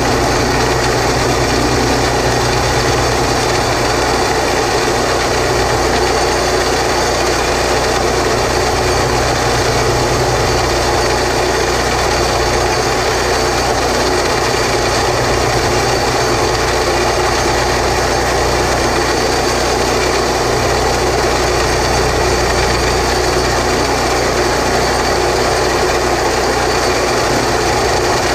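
Engine of a small horizontal boring rig running steadily under load, driving a 4 3/8-inch back reamer through a concrete block.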